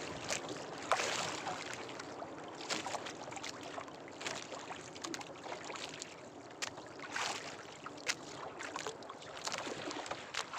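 Wind and water noise around a small wooden fishing boat at rest, with scattered small clicks and knocks.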